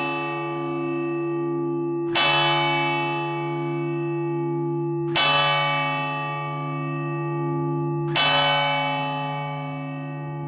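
Church bell tolling: the same note struck three times, about three seconds apart. Each stroke rings on with a slowly wavering hum beneath it.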